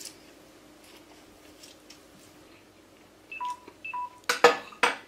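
Two short electronic beeps, each a pair of steady tones, about three and a half seconds in. They are followed by three sharp clinks of a utensil against a small dish.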